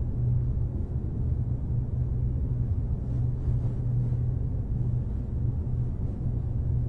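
Steady low hum of a stalled elevator car.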